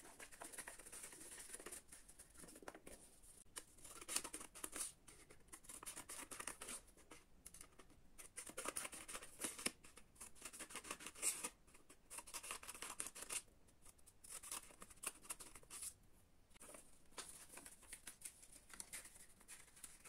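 Small scissors snipping a row of slits into a folded sheet of paper, a quick series of short cuts in runs with pauses between, plus the rustle of the paper being handled and folded. The sounds are faint.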